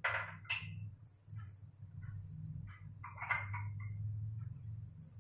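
Two sharp clinks of a glass bowl against the kadhai, then scattered light pops and crackles from the hot oil in the pan, over a low steady hum.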